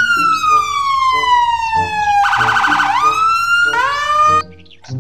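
Police car siren: a long wail falling slowly in pitch, then a brief rapid warble, then rising again before cutting off near the end.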